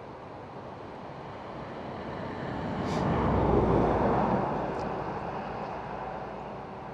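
A vehicle passes by, its noise swelling to a peak about three and a half seconds in and then fading away, over a steady rushing background.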